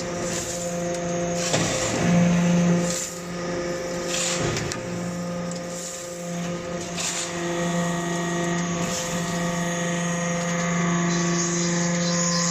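Hydraulic briquetting press for cast-iron chips running: a steady pump hum with a few brief knocks.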